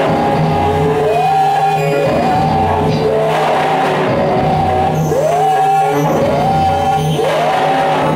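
Live electronic music from a patch-cable modular synthesizer: a tone that swoops upward again and again, roughly once a second, over a steady pulsing low bass.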